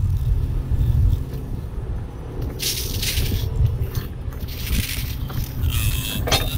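Strong wind buffeting the microphone, with metallic clinks and rattles from the steel underlift fork and hook hardware of a wrecker being handled, once about halfway through and again near the end.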